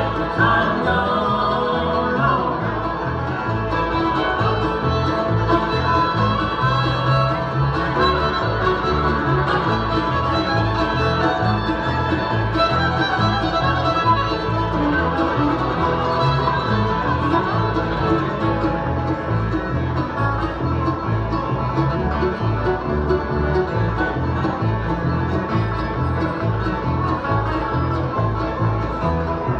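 Bluegrass band playing an instrumental stretch with no singing, over a steady beat.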